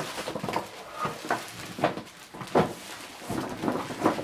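Plastic wrapping crinkling and rustling as a plastic-wrapped handbag is handled and pulled out of its cardboard box, in irregular crackles and scrapes.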